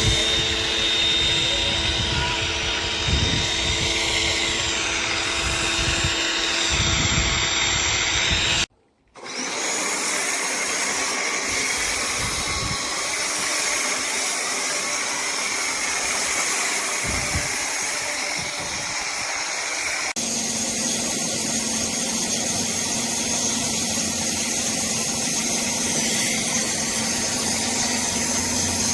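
Pressure washer running, a steady motor drone with hiss. It cuts out for about half a second after about nine seconds and changes tone about twenty seconds in.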